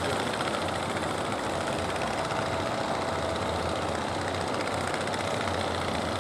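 Fishing boat engines running steadily, a constant low drone under a broad wash of noise.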